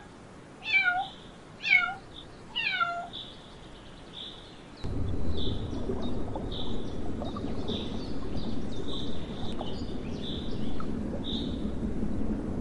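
A cat meows three times, each meow falling in pitch. About five seconds in, a steady low rushing of water in a reef aquarium takes over and runs on.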